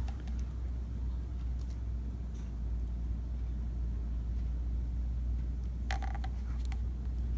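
A steady low hum, with a short cluster of light clicks and taps about six seconds in, as of the drone being handled.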